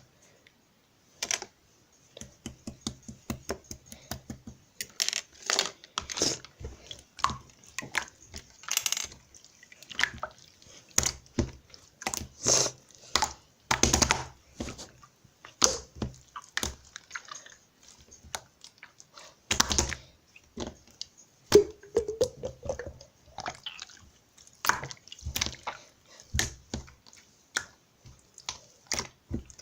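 Irregular, close-up wet clicks, crackles and squishes, many small sharp snaps in quick succession, with a short rising squeak about 22 seconds in.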